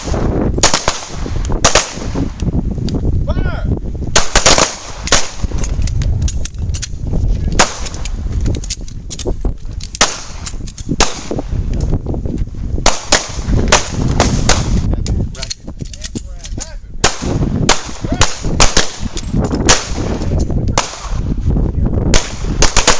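Pistol gunfire: many sharp shots at irregular intervals, some coming in quick clusters, from students shooting on a live-fire line.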